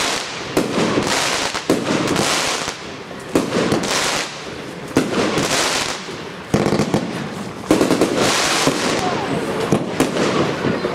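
Evolution 'Visions of Ecstasy' 120-shot compound fireworks cake firing shot after shot: a sharp bang roughly every second or so, each followed by a hissing spray of bursting stars.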